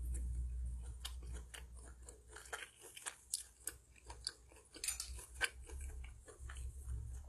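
A person chewing food close to the microphone, with many short, sharp, crunchy clicks and wet smacks spread irregularly through the bites, over a low rumble that is strongest at the start.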